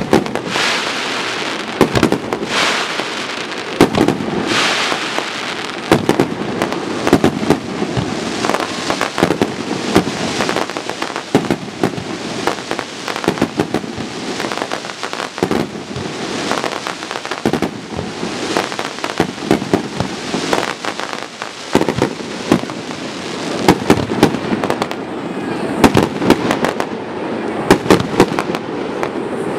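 A fireworks barrage: many shells bursting in rapid succession, with overlapping sharp bangs over continuous crackling.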